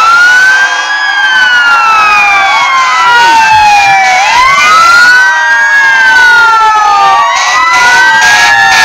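Several fire engine sirens wailing at once, their slow rising and falling wails overlapping out of step as a column of fire trucks drives past.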